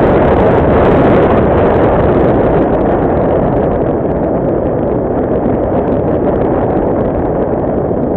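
Steady loud rush of airflow over the onboard camera's microphone on a Radian Pro RC glider in flight, with no clear motor pitch in it. It eases off slightly about four seconds in.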